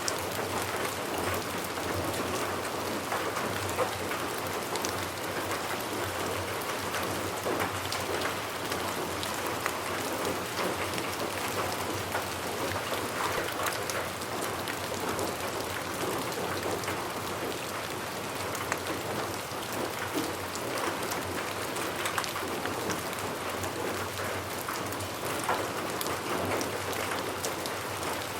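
Steady rain falling, a dense even hiss with many individual drops ticking on a surface.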